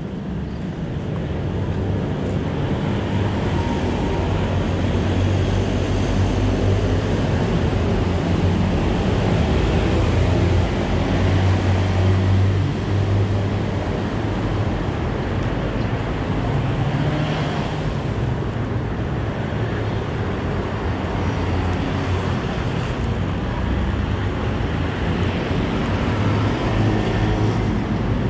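Steady vehicle and road noise with a low rumble, swelling slightly about ten seconds in.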